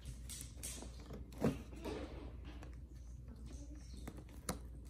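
Cardboard advent calendar being picked at by hand: scattered taps, scrapes and cardboard rustles, with one louder knock about a second and a half in.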